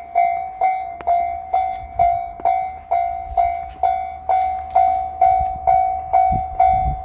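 Japanese level-crossing warning bell ringing steadily, about two strikes a second, each a clear ringing tone that fades before the next, with a low rumble beneath.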